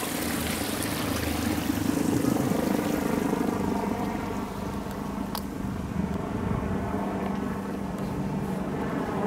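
An engine running steadily, a bit louder in the first few seconds, with one sharp click about five seconds in.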